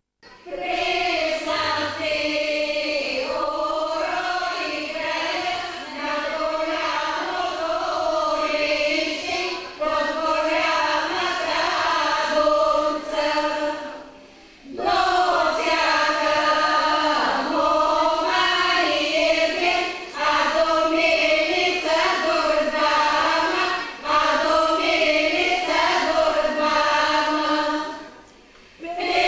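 A group of voices singing a Bulgarian folk song together in long, held phrases, breaking off briefly about halfway through and again near the end.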